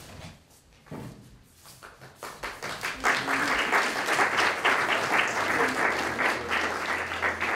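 Audience applauding: a few scattered claps at first, then full, steady applause from about three seconds in, which dies away at the end.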